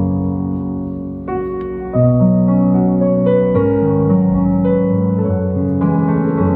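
Electric piano playing slow sustained chords as the instrumental intro of a song, growing fuller and louder with deeper bass notes about two seconds in.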